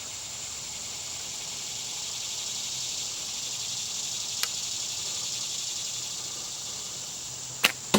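Insects chirring in a steady high drone. There is one faint click midway and two sharp clicks close together near the end.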